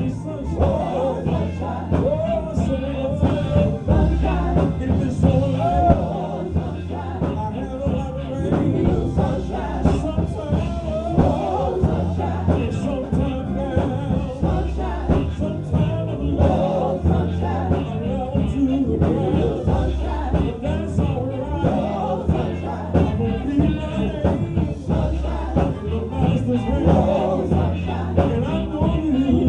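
Live gospel music: a band with a steady bass and beat, and sung vocals over it with backing voices.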